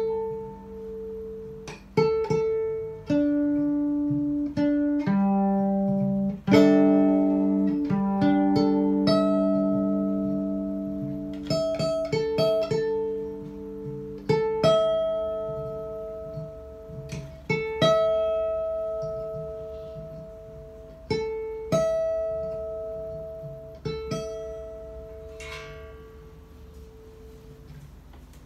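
Old Japanese electric violin plucked pizzicato through a small amplifier: single notes and two- or three-note chords, each starting sharply and ringing on, about one every one to three seconds, dying away near the end.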